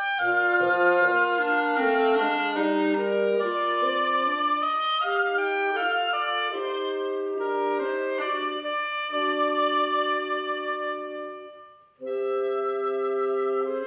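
Orchestral film-score music, with woodwinds and brass playing a gentle melody over held notes. It fades out about twelve seconds in, and a new sustained chord comes in abruptly.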